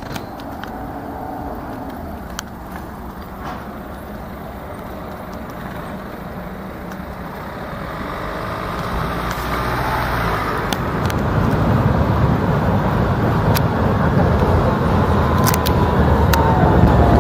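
Road traffic noise, then a Sirio tram approaching and growing steadily louder over the second half, with a rumble that builds and a whine falling in pitch near the end as it slows into the stop.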